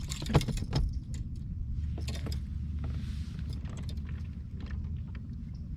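Clicks and knocks of a fishing reel and tackle being handled aboard a kayak while a hooked bass is played, with a cluster of sharp knocks about half a second in and a steady low rumble underneath.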